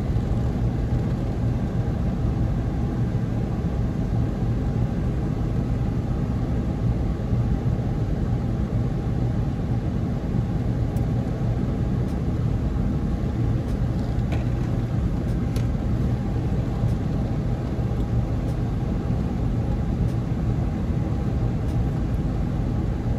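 Steady low outdoor rumble, even in level throughout, with a few faint light clicks in the second half.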